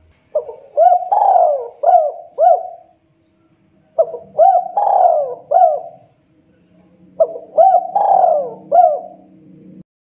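Spotted dove (tekukur) cooing: three phrases of several quick notes each, repeated about every three to four seconds. The last phrase cuts off suddenly.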